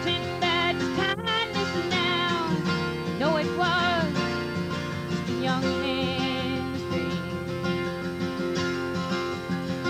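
A woman singing live while accompanying herself on a strummed steel-string acoustic guitar, with vibrato on her held notes.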